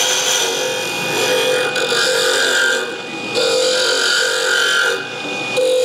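Wood lathe spinning a pen blank on a mandrel while a turning tool cuts it, a steady rasping whine in strokes broken by two short pauses, about three seconds in and near the end.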